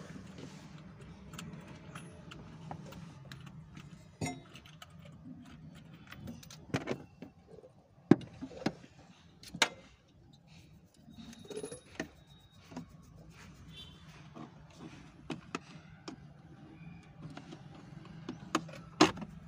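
Scattered metallic clicks, clinks and knocks of hand tools and parts being handled during work inside a car's dashboard, over a steady low hum. The sharpest knocks come about eight and ten seconds in, and twice near the end.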